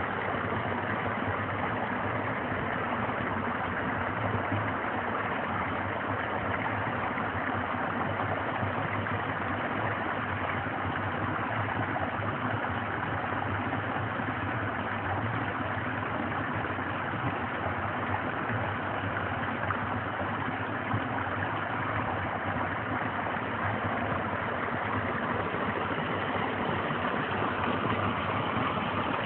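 Snowmelt stream rushing over rocks, a steady unbroken rushing noise.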